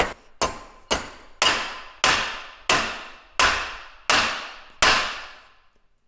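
Hand hammer striking an Acura RSX Type-S hydraulic power steering rack in a bench vise: nine blows about half a second apart, each ringing briefly, stopping about five seconds in.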